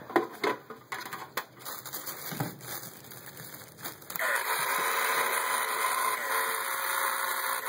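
The small built-in filter pump of a Tetra 1.5-gallon LED aquarium kit running dry in the empty tank, its impeller spinning with no water, a steady whir that starts suddenly about four seconds in and cuts off just before the end. Before it come a few knocks from handling the kit.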